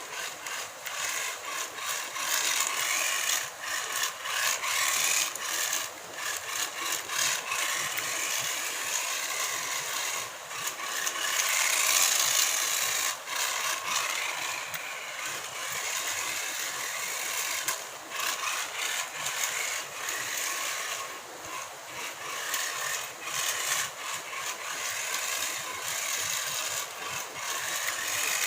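Tiny 1:43-scale RC car's electric motor and gears whirring high-pitched in uneven, stop-and-go spurts as it is driven, with a rattly edge.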